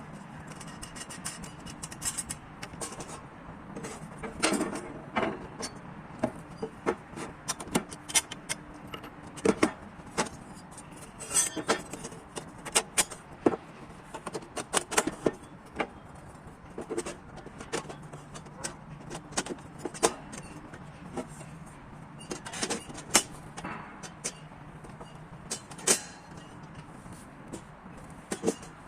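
Irregular metallic clicks and clanks of the steel parts of a demountable portable barbecue being handled and fitted together, over a steady low hum.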